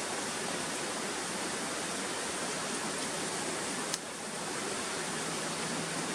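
Steady, even rushing of a stream's running water, with a single sharp click about four seconds in.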